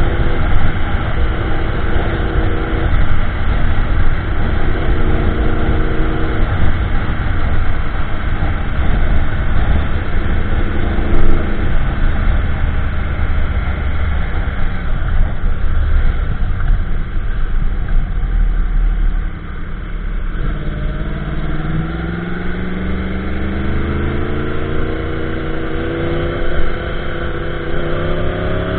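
2015 Yamaha YZF-R1M's crossplane inline-four running through an Akrapovic slip-on with MJS link pipe and factory headers, cruising at motorway speed with heavy wind rush on the microphone. About two-thirds of the way through the engine note drops, then climbs steadily as the bike accelerates.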